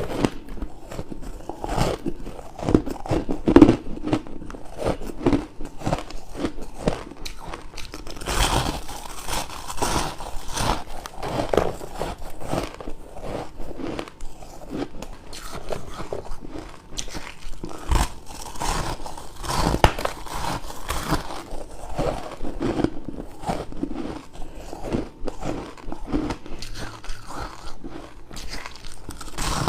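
Close-up crunching of crushed and shaved ice being bitten, a rapid run of crisp cracks and crackles, several to the second.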